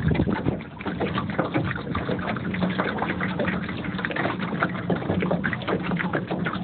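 Small motorboat under way: the motor runs with a steady low hum while water slaps and splashes against the hull.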